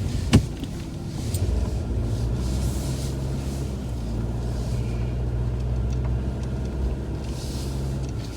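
A motor vehicle's engine running with a steady low rumble, and road or tyre noise swelling and fading twice. A single sharp click comes about half a second in.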